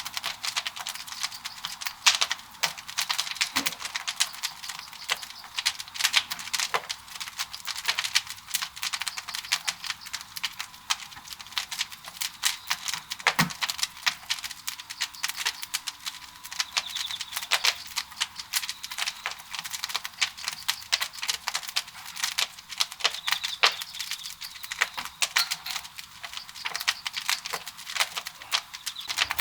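Wood fire burning in a traditional Korean wood-fired pottery kiln, crackling continuously with dense irregular snapping and a few louder pops.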